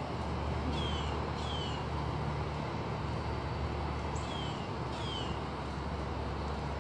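A bird calling outdoors with short whistled notes that slide downward, four of them in two pairs, over a low steady rumble.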